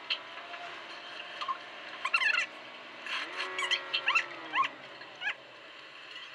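In-cabin dashcam sound of a car driving, played back at three times normal speed: a steady sped-up engine and road hum whose pitch rises about three seconds in, with frequent short, high chirps and squeaks over it.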